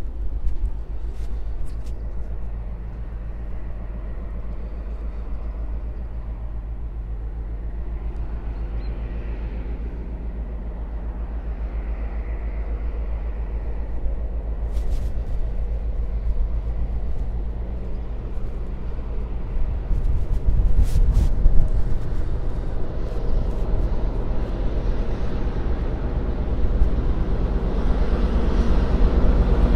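Diesel freight locomotive engine running with a steady low hum, with a couple of sharp knocks midway, growing louder over the last few seconds.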